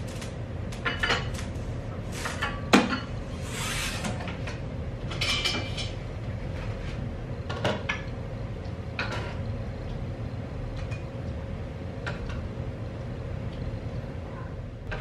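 Dishes and a cooking pot being handled at a kitchen counter: scattered ceramic clinks, scrapes and knocks as food is dished out, with the sharpest knock about three seconds in.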